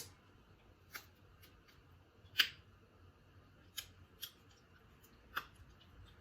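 Crab shells being cracked and snapped apart by hand: about five sharp, separate cracks, the loudest about two and a half seconds in.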